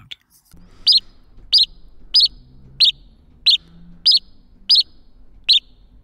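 Synthesized house sparrow chirps from a Phase Plant software synth patch, played as eight short chirps about two-thirds of a second apart, starting about a second in.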